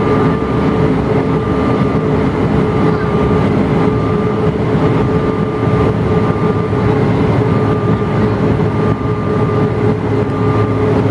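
Cabin noise inside a Bombardier CRJ-900 climbing after takeoff: a steady drone of its two rear-mounted GE CF34 turbofans and rushing air, with several steady hums over it.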